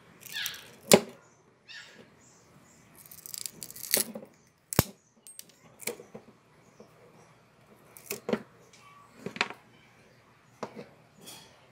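Diagonal side-cutting pliers snipping and crunching chips of wood off the end of a wooden hammer handle: about half a dozen sharp snaps several seconds apart, the loudest about a second in, with light rustling of wood fibres between them.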